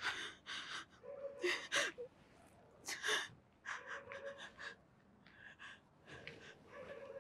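A frightened woman breathing quickly, with short shaky gasps, a few each second.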